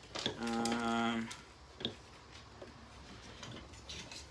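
A man's voice holding a short, steady 'hmm' for about a second, followed by a few light clicks and taps of small plastic vacuum parts being handled.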